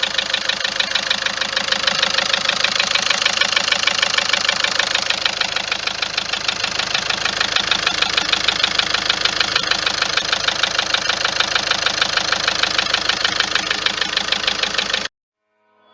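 Car engine idling with a constant rapid, even ticking clatter, which the mechanic puts down to the injectors and the tappets. It cuts off suddenly near the end.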